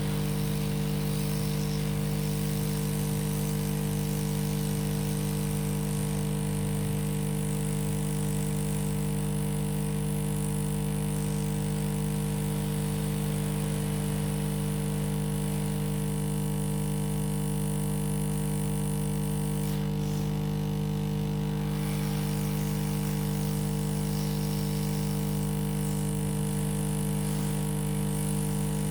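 A steady electrical hum made of a few constant low tones with a light hiss over it, even in level throughout.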